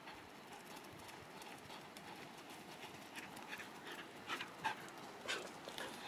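A dog panting close by, in quick short breaths that start about three seconds in.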